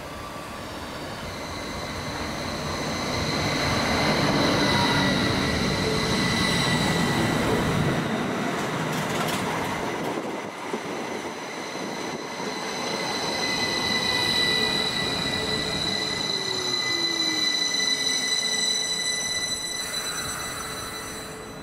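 Northern class 333 electric multiple unit running past close by, growing louder over the first few seconds, with steady high-pitched whines and wheel noise. In the second half a lower motor whine falls in pitch as the train slows.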